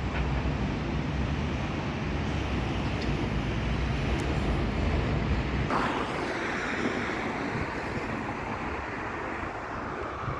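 Wind rumbling on the microphone over outdoor traffic noise. About halfway through, the low rumble drops away and a steady higher hiss takes over.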